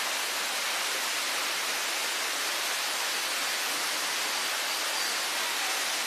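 Steady rush of water from a waterfall, an even hiss that does not change.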